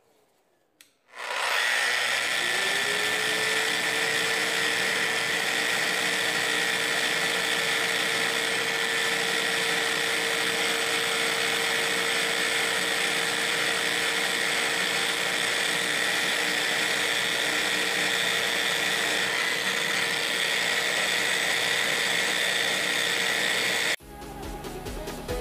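Electric random orbital sander switching on about a second in, its pitch climbing briefly as it spins up, then running steadily as it sands a cured epoxy repair on a jet ski's composite hull. It cuts off abruptly near the end.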